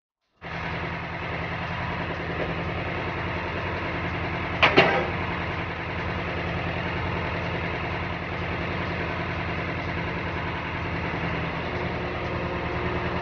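Tractor engine running steadily to drive a hydraulic log splitter, starting about half a second in. A sharp crack a little under five seconds in is the loudest sound.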